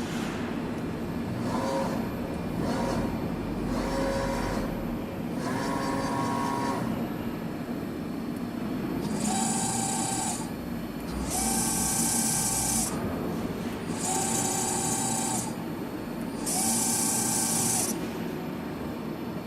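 Mikron WF 21 CNC milling machine running under power. Its motors whine in several short runs, then in four longer, louder runs of a second or so each that start and stop abruptly over a steady hum.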